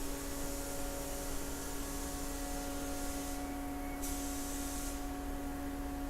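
Haas VF-1D vertical machining center running, a steady whine made of several held tones over a low hum. A high hiss sits above it, stops about three and a half seconds in, and comes back briefly a little later.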